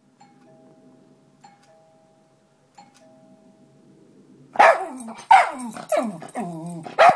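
A doorbell chimes a faint two-note ding-dong three times, about a second and a half apart. Then, about four and a half seconds in, a dog breaks into a run of loud barks.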